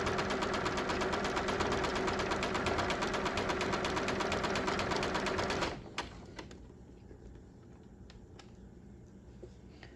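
Electric household sewing machine stitching fast on a zigzag stitch: a rapid, even needle rhythm that stops abruptly about six seconds in, followed by a few faint clicks.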